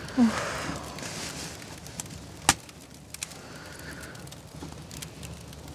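Wood campfire crackling with scattered small ticks, and one loud, sharp crack about two and a half seconds in.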